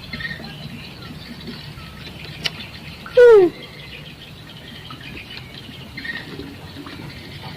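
A single short bird call, falling in pitch, about three seconds in. It stands over a steady faint outdoor hiss, with one sharp click just before it.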